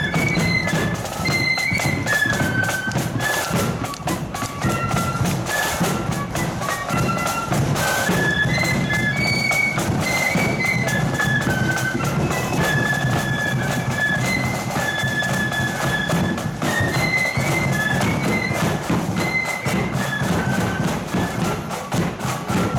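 Marching flute band playing a tune: high flutes carry the melody over a steady drum beat.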